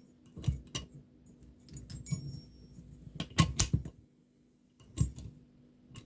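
Abus 83AL/45 padlock, just picked open, being handled: irregular metallic clicks and rattles in small groups, with a short pause in between.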